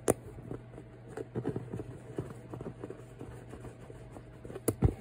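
Light, irregular clicks and taps of dresser parts being handled while a screw is threaded in by hand, with a sharp click at the start and another near the end.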